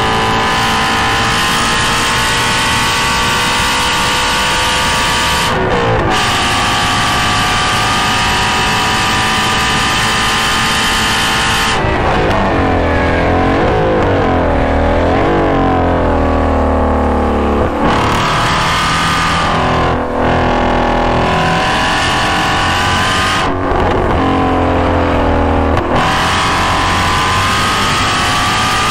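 2016 Shelby GT350's flat-plane-crank V8 heard through its GT350R exhaust, accelerating with the revs climbing and a gear change about six seconds in. Near the middle it comes off the throttle and the revs swing down and up through several downshifts with short breaks, then it climbs again near the end.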